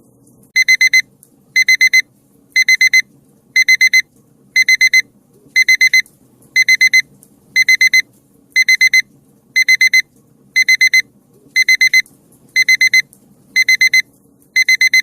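Electronic timer alarm beeping: loud groups of four quick, high beeps repeating about once a second, signalling that the countdown has run out.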